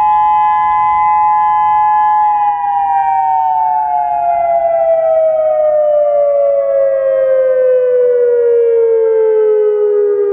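Federal Signal Modulator 6024 electronic siren sounding its dual-tone alert: two tones held steady together, then from about two seconds in both glide smoothly down in pitch. This is the wind-down at the end of its three-minute alert, and it cuts off right at the end.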